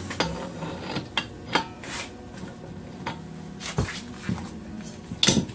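Scattered metallic clinks and knocks of a wrench being set on and worked against the threaded pipe fitting of a Quincy QT7.5 compressor pump's air filter, the loudest knock near the end.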